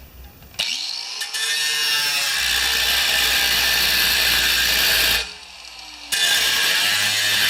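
A power tool spins up and cuts sheet steel, a loud, steady, hissing cut. It stops about five seconds in and starts again a second later.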